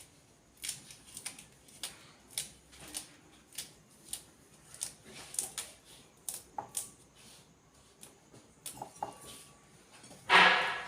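Irregular light clicks and taps, roughly one or two a second, then one louder, noisy clatter near the end.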